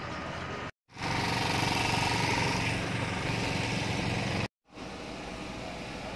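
Engine and traffic noise of a busy street, steady and without speech. It comes in three short edited pieces separated by two brief dead silences, and the middle piece, from about one to four and a half seconds in, is the loudest.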